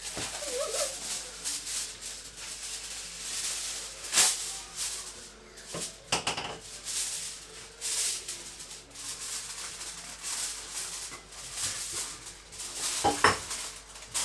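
A big metal spoon clinking and scraping in a cooking pot, with a few sharper knocks.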